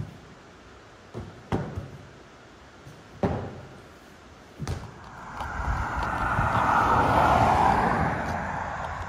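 A large inflatable exercise ball thumping three times, about a second and a half apart, as it is bounced off a horse and the arena floor. After that comes a rush of noise that swells and then fades.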